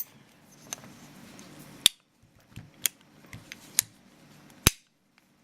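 Sharp metallic clicks from the 1879 Reichsrevolver's action being worked and its cylinder rotated after reassembly, about one louder click a second with fainter ticks between, the loudest near the end.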